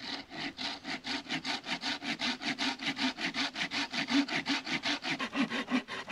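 Hand saw cutting through a dry branch in quick, even back-and-forth strokes.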